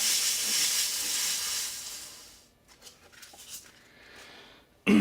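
Styrofoam block pressed against a spinning 1971 Hunter ceiling fan motor as a brake, making a steady scraping hiss that fades away as the motor slows, stopping about two seconds in. A few faint clicks follow, then a single sharp knock near the end.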